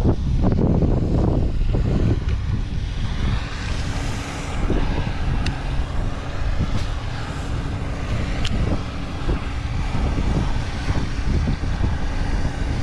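Wind buffeting the microphone, a dense steady rumble, with a faint steady hum beneath it and two light clicks about five and eight seconds in.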